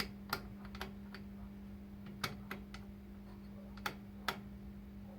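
Dumont Type 208-B oscilloscope's coarse frequency control being turned, giving about nine irregular clicks over a steady hum.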